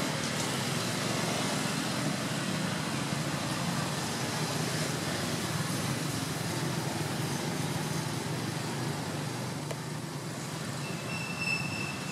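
Steady low rumble of vehicle traffic, with a high thin squeal starting near the end.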